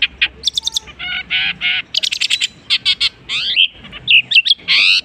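Long-tailed shrike (cendet) singing a fast, varied medley of chirps, trills, sweeping whistles and harsh buzzy notes, mimicking the calls of other birds.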